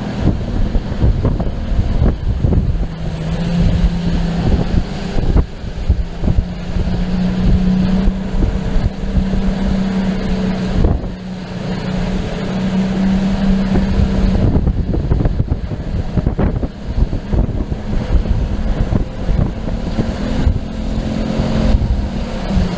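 Motorboat engine running steadily in rough water, its note stepping up a few seconds in and shifting again near the end as the throttle is worked. Heavy wind buffets the microphone, with frequent knocks and splashes.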